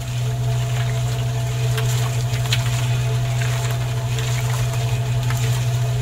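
Small electric motor of a miniature homemade concrete mixer running with a steady low hum, turning the drum, with faint ticks and rattles over it.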